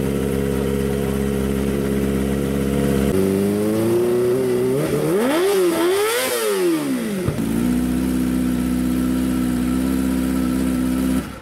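Engine with a loud aftermarket open exhaust (knalpot brong) idling, then revved up and down in a few blips starting about three seconds in, before settling back to idle. The sound cuts off abruptly near the end.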